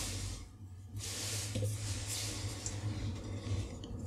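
Soft handling noises of hands working the 3D-printed microscope stage and a grease applicator, with a few faint small ticks over a steady low hum.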